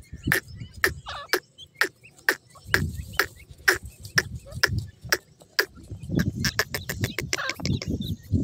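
Grey francolins and their chicks giving a run of short, sharp clicking clucks, irregular at about two a second and coming quicker near the end. Under the clucks is low scuffling and fluttering from the chicks dust-bathing in the dirt.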